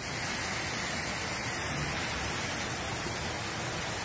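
Fast-flowing floodwater rushing down a street: a steady, even rush of water.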